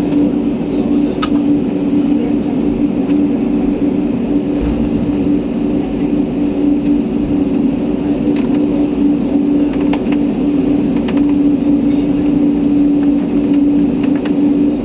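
Steady drone of an aircraft heard from inside the passenger cabin: a strong, even low hum over a bed of noise, with a few faint clicks now and then.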